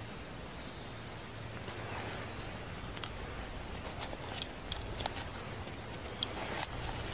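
Woodland ambience with birds calling over a steady outdoor hiss, including a quick run of high, falling notes about three seconds in. A few sharp clicks in the second half from close-by handling of a small leather pouch and its wooden pieces.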